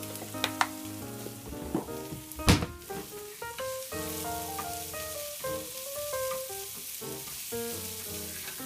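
Food sizzling as it fries in oil in a pan, over background music with steady melodic notes. A few sharp clicks come in the first few seconds, the loudest about two and a half seconds in.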